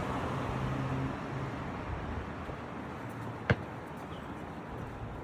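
City traffic noise, with a low engine hum that fades out after about a second. One sharp click about halfway through stands out above the traffic.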